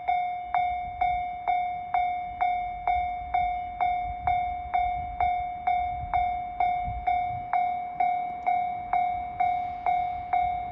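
Japanese railway level-crossing alarm ringing its electronic ding over and over, about two strikes a second, each fading before the next. The barriers are lowered: the crossing is closed for an approaching train.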